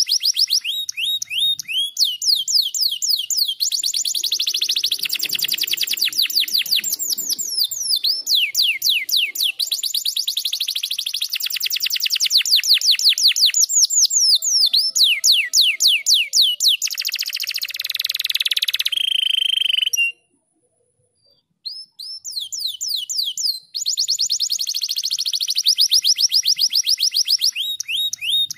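Domestic canary singing fast rolling trills: long runs of quick falling whistled notes, many to the second, broken by a short held note and then a brief pause about two-thirds of the way through before the trills start again.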